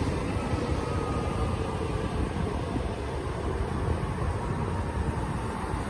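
Ocean surf breaking and washing up the beach, a steady rushing noise mixed with a low wind rumble on the microphone.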